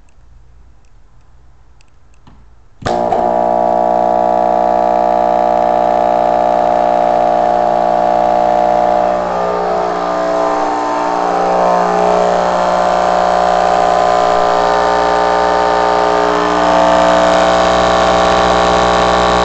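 Rockford Fosgate P1 8-inch subwoofer connected straight to household mains, cutting in suddenly about three seconds in with a loud, steady buzzing hum. Its tone wavers and roughens partway through, then gets a little louder near the end, as the speaker is overdriven far past its rating at close to 1700 watts in free air.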